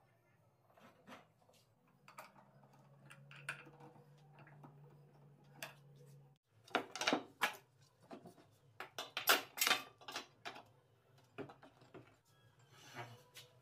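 Clicks and knocks of a wooden blank and metal lathe fittings being handled and set up on a homemade drill-driven wood lathe. A low steady hum runs for a few seconds. From about seven seconds in comes a run of sharper, louder metallic clatter.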